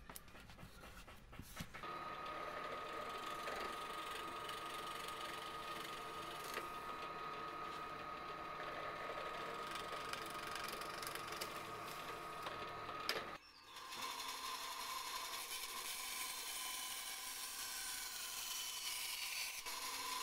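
A drill press starts about two seconds in and runs steadily with a held motor whine while its twist bit bores through a wood block; about thirteen seconds in it cuts off abruptly and a scroll saw takes over, running steadily as it cuts the block.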